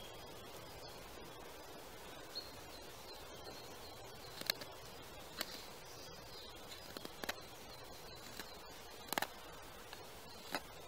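Straight wood-carving knife slicing shavings off a wooden spoon blank: a series of short, sharp cuts at irregular intervals, the loudest about four and a half and nine seconds in.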